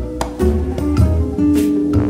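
Background music: plucked guitar and bass over a steady beat.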